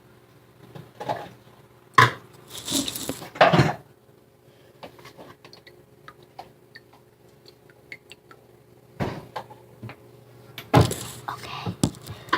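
Knocks, clinks and clatter from handling a glass of water and a wet scrunchie: a sharp knock about two seconds in, a second or so of noisy clatter, scattered small ticks, and more clatter near the end.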